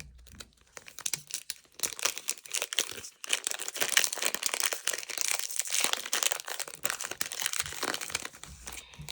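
Crinkling plastic wrapper of a Magic: The Gathering Commander Masters booster pack being torn open and pulled apart by hand, in a busy stream of crackles that thickens after the first couple of seconds.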